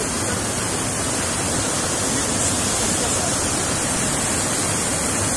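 Water pouring steadily from the open discharge outlet of a stone dam and cascading over a masonry step, a continuous rushing. The reservoir is full and the discharge valve has been opened to let it off.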